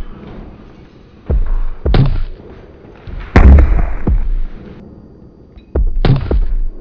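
Punches and blows landing in a staged fight: a run of heavy thuds at uneven spacing, the loudest a little over three seconds in and two close together near the end, with faint music underneath.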